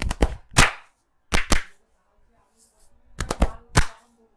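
Sharp hand slaps of a percussive Indian head and back massage. They come in quick groups of one to four, about a dozen in all, with short pauses between.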